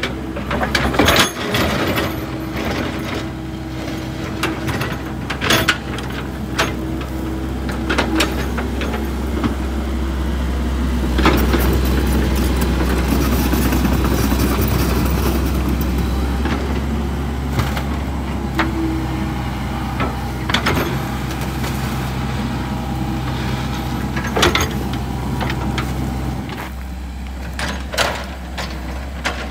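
Komatsu PC78US excavator's diesel engine running steadily under hydraulic load while the bucket digs a trench in clay soil, with scattered knocks of the bucket and steel. The engine works harder for several seconds midway.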